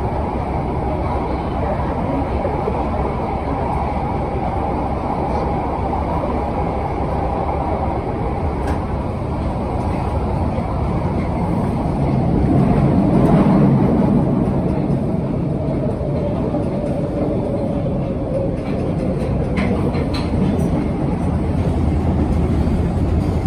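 London Underground 1972 Stock train running through a tunnel, heard from inside the carriage: a steady rumble and rattle with a whine, swelling louder about halfway through. In the second half the whine falls in pitch as the train slows into a station, with a few sharp clicks near the end.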